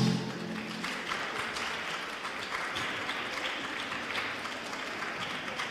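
Audience applauding, a steady patter of many hands clapping as the routine music stops at the start.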